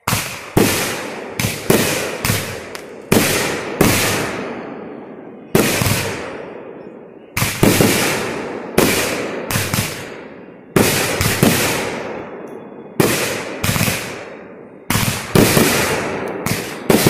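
Consumer aerial fireworks bursting overhead: a rapid, uneven string of booms, some coming in quick twos and threes, each trailing off in a long echo.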